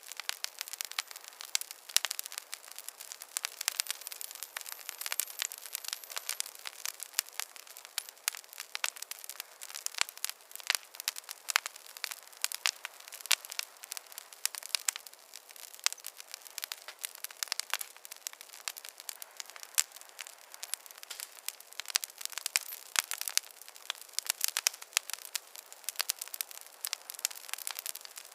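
Wood fire crackling in a fireplace: a dense, irregular run of sharp pops and snaps over a soft steady hiss.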